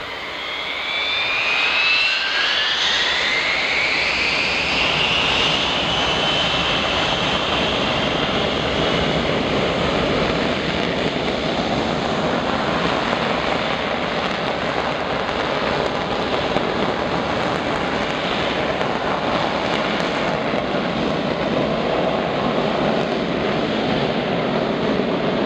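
The four TF33 turbofan engines of a Boeing E-3A Sentry spooling up to takeoff power: a whine rising in pitch over the first few seconds, then a steady, loud jet roar as the aircraft starts its takeoff roll.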